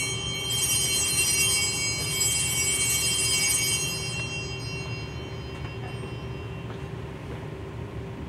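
Altar bells rung at the elevation of the chalice, struck again about half a second in, the ringing then dying away over several seconds. A steady low hum runs underneath.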